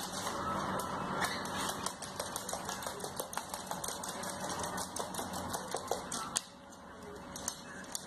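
A parrot's claws clicking and scrabbling fast and irregularly on a hard floor as it wrestles a plush toy, over a steady rustling.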